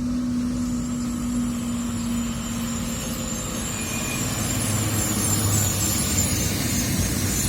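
Heavy diesel engines of road-paving machinery running steadily, with a steady hum that fades out about three seconds in and a deeper rumble swelling near the middle.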